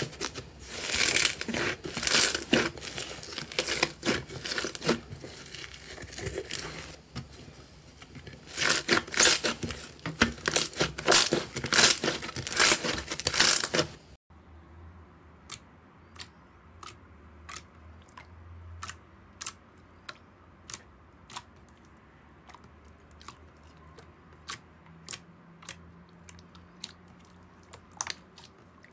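Hands pressing and poking a grainy, textured slime in a glass dish: loud, dense crackling and tearing. About halfway it gives way to a much quieter stretch of sharp single clicks, roughly one a second, from a smoother, glossier slime being squeezed.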